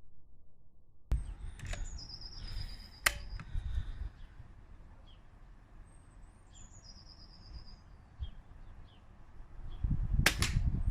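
Wild bird singing: a whistled phrase that falls in pitch, given twice, with scattered short chirps, over a low outdoor rumble. A sharp click comes about three seconds in, and a louder burst of rumbling noise near the end.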